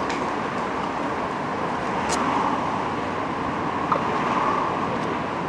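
Steady city street traffic noise: passing cars and trucks, with a brief sharp click about two seconds in.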